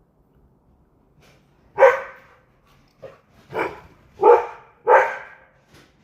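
A dog barking: a run of four loud barks, with a softer one among them, beginning about two seconds in.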